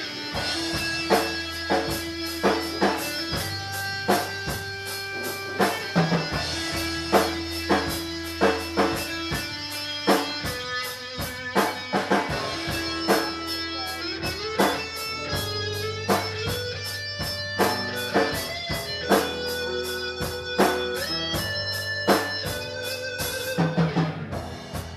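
Instrumental music: guitar over bass and a drum kit keeping a steady beat, with no singing.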